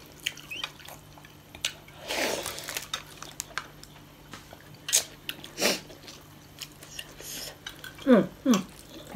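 Close-up eating sounds: wet mouth smacks and chewing clicks, with a longer slurp about two seconds in and two short falling voiced sounds near the end.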